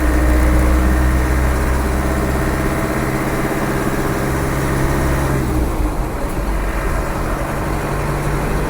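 Land Rover 300Tdi four-cylinder turbodiesel running under way, heard from inside the cab, with road noise. The steady engine note drops away about five and a half seconds in, then settles again.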